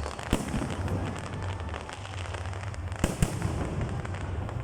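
Fireworks going off: a sharp bang shortly after the start and two more bangs close together about three seconds in, with a constant crackle of smaller pops between them.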